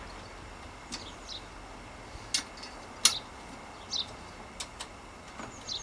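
Scattered light metal clicks and taps, with a few short squeaks, as a quill stem is loosened and worked out of a threaded headset's fork steerer. The sharpest click comes about three seconds in.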